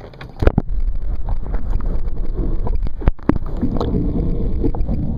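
Wind buffeting the microphone on an offshore boat: a loud low rumble that starts about half a second in, with a few sharp knocks, one near the start and two close together about three seconds in.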